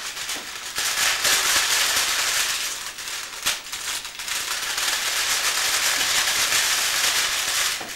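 A large sheet of thin plastic crinkling and rustling as it is shaken out and folded by hand, with a single sharp snap about three and a half seconds in.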